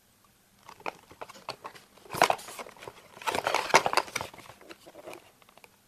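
A cardboard Kinder Surprise six-pack box being handled and opened by hand: cardboard scraping, clicking and rustling, loudest about two seconds in and again for about a second from three seconds in, then tapering off.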